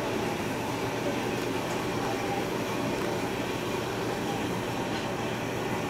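Steady background hum of room noise with no distinct sounds.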